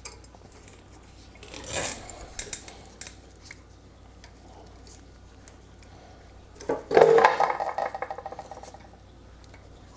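Metal parts and tools rubbing and scraping as carburetor linkages are worked loose by hand: a short scrape about two seconds in, then a louder, longer rubbing scrape with a slight ringing from about seven seconds.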